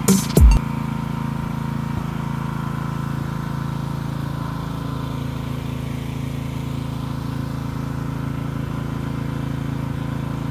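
An engine running steadily, a constant low hum with a few unchanging tones.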